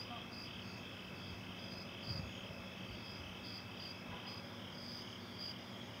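Night insects chirping: a steady, high, pulsing chirp repeating a few times a second, with one soft low bump about two seconds in.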